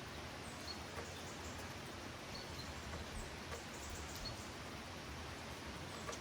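Steady rain falling, with scattered drops ticking and pattering close by.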